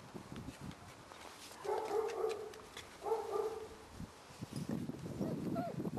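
Labrador puppy giving two drawn-out yelping barks about a second apart, followed by softer scuffling and small yips as the puppies play.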